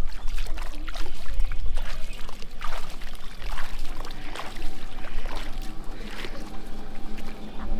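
Water splashing and trickling, with many small irregular splashes.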